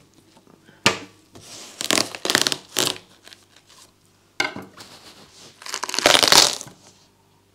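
Kitchen knife cutting through a crisp seedless watermelon's rind and flesh in several bursts. The loudest comes near the end, as the melon splits open.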